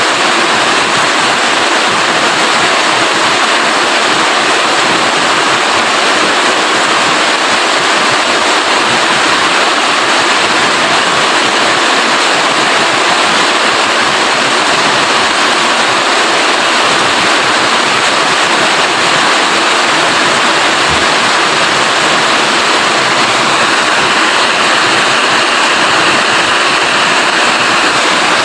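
Steady heavy rain, an even hiss without letup.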